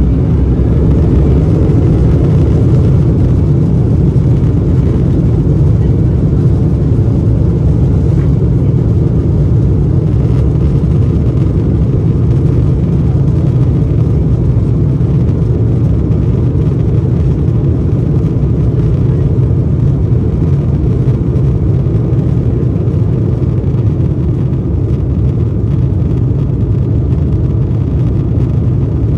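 Embraer E190's twin GE CF34 turbofans at takeoff power, heard from inside the cabin beside the wing: a loud, steady, deep rumble through the takeoff roll, lift-off and initial climb.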